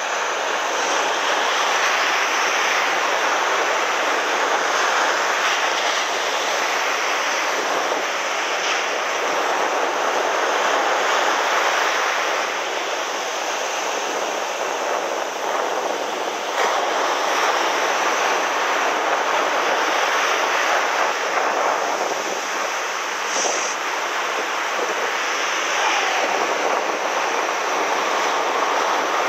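Ocean surf breaking and washing up a sandy beach: a steady rushing that swells and eases gently every few seconds.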